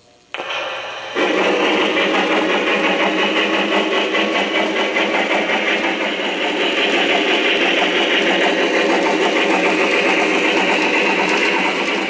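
O-gauge model train running: a steady mechanical rushing sound with a fast, even pulse, starting about a second in.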